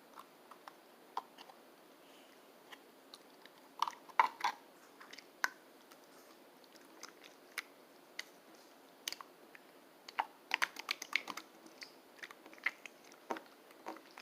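Slime being squished and poked by hand, giving irregular wet clicks and little pops, with denser clusters about four seconds in and again around ten to eleven seconds.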